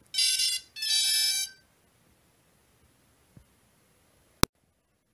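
Two loud electronic beeps, a short one then a longer one, from a small piezo-type beeper in the drone's radio and flight-control setup. About four seconds later there is a single sharp click.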